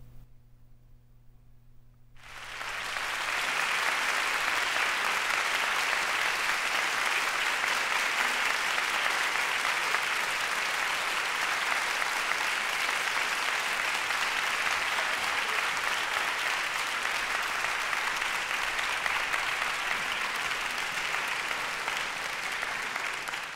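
Audience applause, breaking out after a hush of about two seconds, swelling quickly and then holding steady.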